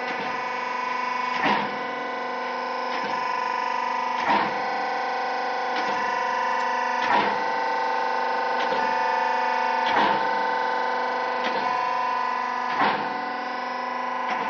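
YY-80B hydraulic dried-fruit and date cube-cutting machine running: its hydraulic power unit gives a steady humming whine, while the cutting press cycles with a knock about every one and a half seconds, alternating a louder and a softer knock.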